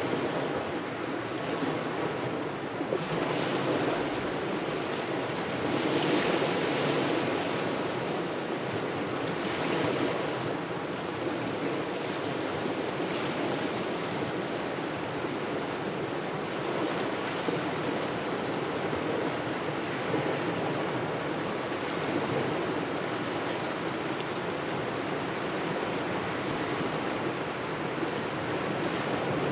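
Small waves washing onto the shore in a cold, gusty wind, an unbroken rushing noise that swells a little about six seconds in.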